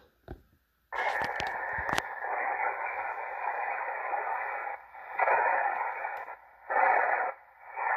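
Malahit-DSP SDR shortwave receiver starting up: a few clicks, then from about a second in its speaker plays band noise, tuned in LSB with a narrow filter. The noise drops out briefly three times.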